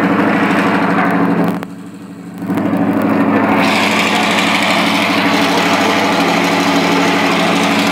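An engine running steadily at constant speed, with no revving. Its level drops sharply for under a second about a second and a half in, then picks back up.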